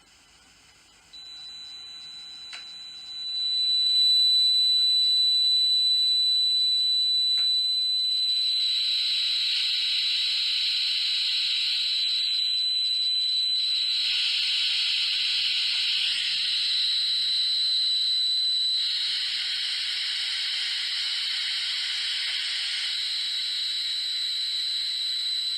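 Simulated tinnitus. A steady high-pitched tone starts about a second in, and a couple of seconds later a loud, steady hiss joins it. The hiss changes in character several times, like a gas leak or pressure cooker.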